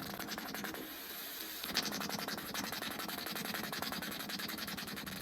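Mayonnaise squeeze bottle sputtering out mayonnaise and trapped air in a fast, continuous crackle of small pops, the fart-like sound. It grows louder about two seconds in.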